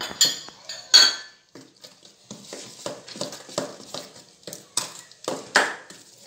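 A spoon clinking twice against a bowl, then stirring in quick repeated strokes, mixing mashed banana with sugar, grated coconut and spices.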